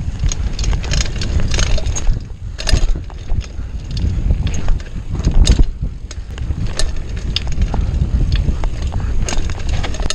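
Mountain bike rolling fast over a bumpy dirt trail, with wind rumbling heavily on the microphone and scattered clicks and rattles from the bike as it hits bumps.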